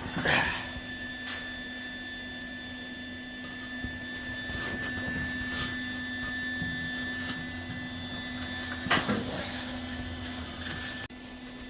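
A steady machine hum holding a few fixed tones, with two knocks: one just after the start and one about nine seconds in, plus a few faint clicks.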